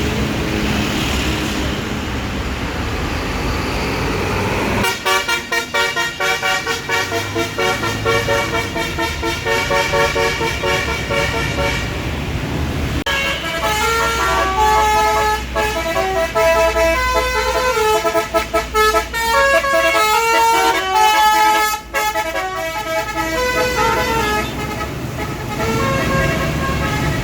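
Bus 'basuri' telolet air horn playing tunes over the rumble of the bus engine. A fast run of notes starts about five seconds in, then a second, longer melody follows. It stops a couple of seconds before the end, leaving the engine rumble.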